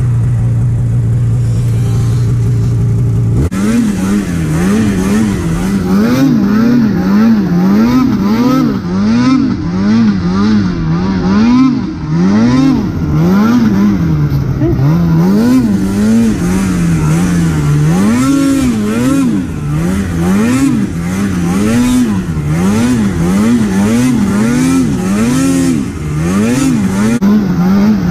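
Two-stroke snowmobile engine under load in deep snow. It holds a steady pitch for about three seconds, then is revved up and down over and over, roughly once a second, as the throttle is worked.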